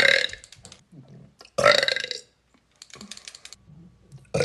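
A woman burping loudly twice, a short belch right at the start and another about a second and a half in, each lasting about half a second. A brief run of rapid clicking follows about three seconds in.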